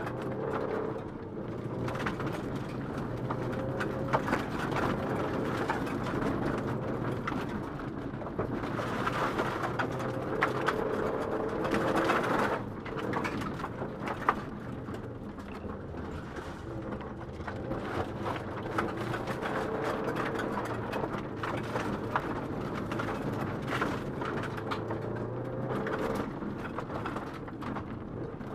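Rally car engine heard from inside the cabin, driven hard, its pitch rising and falling with throttle and gear changes. Gravel and stones clatter against the underside in sharp clicks throughout.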